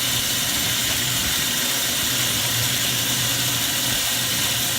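Water from a hose-fed supply running steadily into a Kohler Kingston toilet, a continuous hiss as it fills toward its next flush, with a faint low hum underneath.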